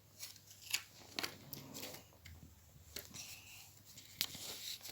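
Faint handling noises in a small room: soft rustles and a few light clicks, about four of them.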